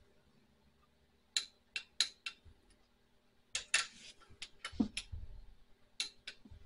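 Hand ratchet on a long extension clicking as the handle is swung back, tightening a water pump bolt. The clicks come in short irregular runs, with a denser flurry about halfway through.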